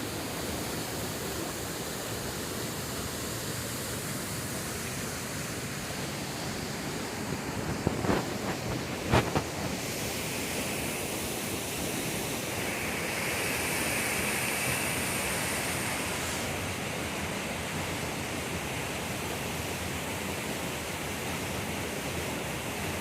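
Waterfall rushing steadily, a constant even roar of falling water. A few short knocks sound about eight and nine seconds in.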